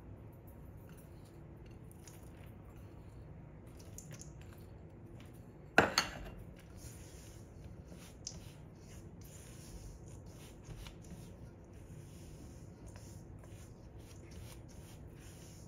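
Red silicone spatula stirring and scraping a dry flour mixture in a stainless steel mixing bowl, with faint scratchy rubbing. About six seconds in there is a sharp double knock against the bowl that rings briefly, and a smaller click a couple of seconds later.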